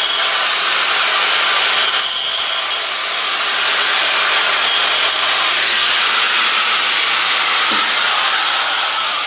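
Angle grinder cutting into a wall along a marked circle, a steady grinding hiss that fades somewhat over the last few seconds as the grinder is drawn back from the wall.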